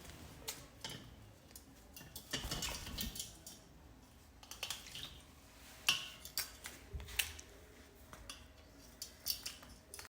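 Rose-ringed parakeet bathing in a container of water: irregular small splashes and flicks of water.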